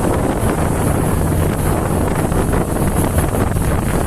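A motorboat's engine running steadily while under way, with strong wind noise on the microphone.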